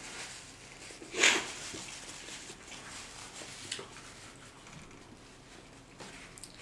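A man blowing his nose once into a paper napkin about a second in, a short loud blast of breath. Faint rustling and small ticks of the napkin follow.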